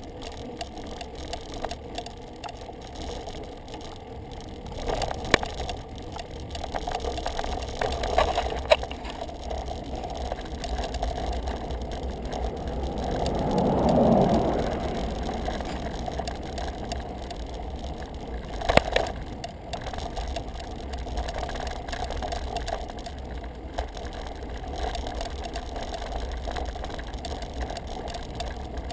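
Road bicycle climbing at walking-pace speed, heard through a bike-mounted camera: a steady low wind rumble on the microphone and tyre noise on asphalt, with a few sharp clicks and rattles from the bike. About halfway through, a sound swells up and fades away over a few seconds.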